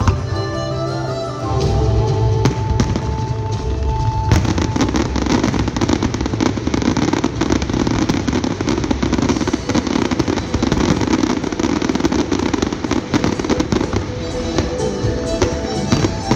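Music with held notes, then about four seconds in a fireworks display begins: aerial shells bursting in a dense, continuous crackle over the music.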